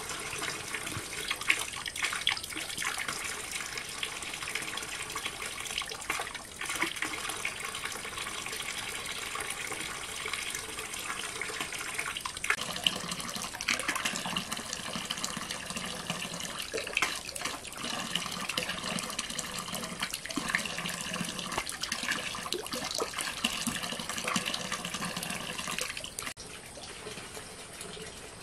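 A thin stream of water pouring from a pipe into a shallow concrete tank, splashing steadily on its tiled floor as the tank begins to fill. It gets quieter near the end.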